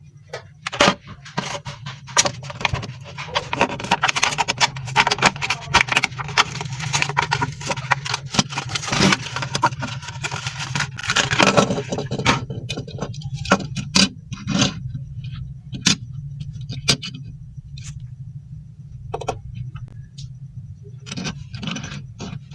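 Hot Wheels packaging being opened: plastic blister and cardboard crinkling and tearing in a dense run of rustles and clicks for about the first twelve seconds, then scattered clicks and taps, over a steady low hum.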